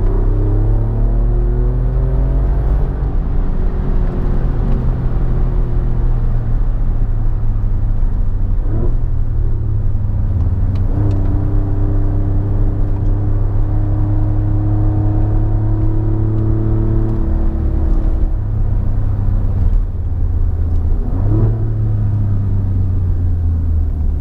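Alfa Romeo Giulia Quadrifoglio's twin-turbo V6 heard from inside the cabin while driving, exhaust fitted with an X-pipe and its valves held open. The engine note holds and climbs slowly under light throttle, with sudden pitch changes at gear shifts about nine seconds in and again near the end.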